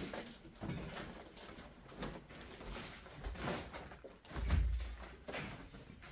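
Scattered light knocks and bumps, with a heavier low thump about four and a half seconds in.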